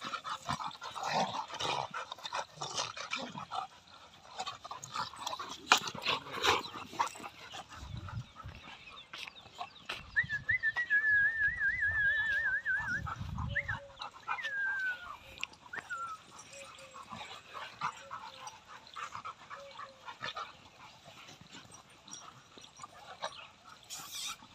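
A Rottweiler and Labrador retrievers play-fighting: a jumble of short dog sounds and yips in the first several seconds, then a high wavering whine for about three seconds midway, followed by a few short falling whines.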